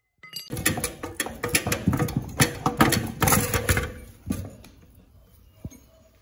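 Irregular metal knocks, clanks and scrapes as a gearbox is worked loose and pulled off an engine block. The clatter is busiest for the first four seconds, then thins to a few scattered knocks.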